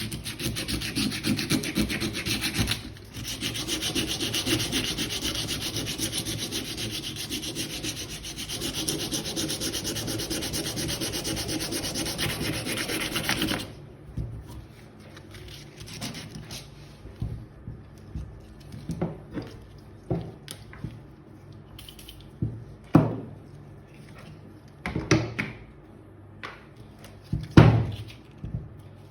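Coarse 80-grit sandpaper rubbed quickly back and forth over the rusty metal of a hand tool, in a dense steady scraping that breaks briefly about three seconds in and stops abruptly about halfway through. After it come a few scattered short scrapes and knocks.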